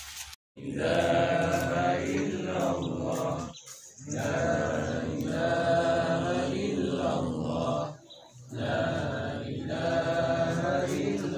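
A group of men chanting together in unison, in three long phrases with short breaths between.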